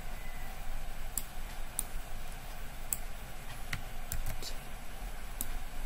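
About eight irregular, scattered clicks of a computer mouse and keyboard while a component is being placed in PCB design software, over a low steady hum.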